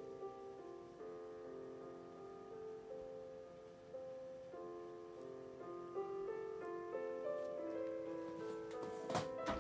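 Gentle background piano music, slow single notes and chords. A short sharp noise near the end.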